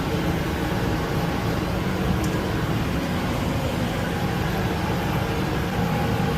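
Steady hum and rush of a running boiler and its boiler-room equipment, unchanging throughout.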